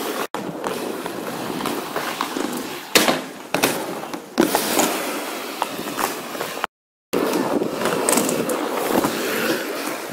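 Inline skate wheels rolling over asphalt, with a few sharp clacks from skates hitting the ground or ramps about three to four and a half seconds in. The sound drops out completely for a moment a little past halfway.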